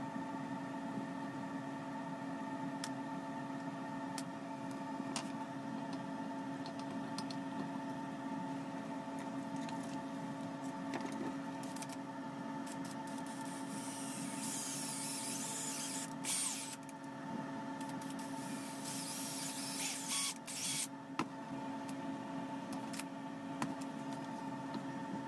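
Cordless drill boring holes into the knife piece clamped in a bench vise, heard as two bursts of a couple of seconds each about halfway through, with light clicks of handling. A steady machine hum runs underneath throughout.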